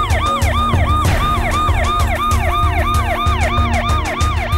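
Ambulance siren wailing in a fast rise-and-fall, about three cycles a second, over a low rhythmic thumping.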